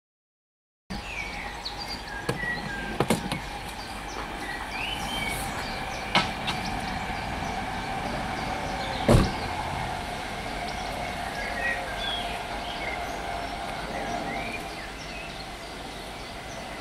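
Outdoor ambience starting about a second in: small birds chirping over a steady distant drone. A few sharp knocks break through, the loudest about nine seconds in.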